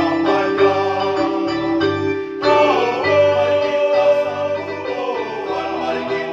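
Mixed choir singing a Mass hymn in parts, accompanied by an electronic keyboard holding bass notes that change in steps. The singing grows fuller and louder about two and a half seconds in.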